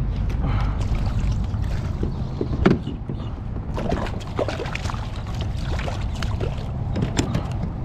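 Fishing kayak under way on the water: water splashing and lapping against the hull with scattered knocks and clatters over a steady low rumble, one louder knock a little under three seconds in.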